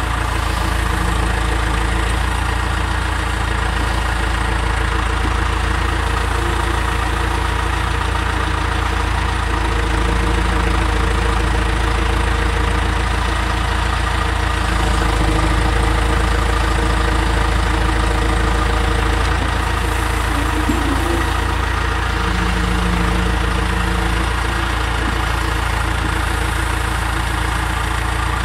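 Backhoe loader's diesel engine running steadily at low speed, with slight swells in engine speed now and then.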